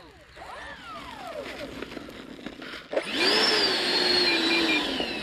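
Twin electric ducted fans of an Arrows RC MiG-29 model jet at low throttle, their whine gliding up and down as it taxis. About three seconds in, the throttle comes up and the fans give a loud, steady high whine that slowly sags in pitch.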